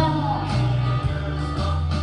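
Rock-and-roll backing music in an instrumental break: a prominent bass line changing notes about twice a second under steady instrument notes, with the singing fading out at the start.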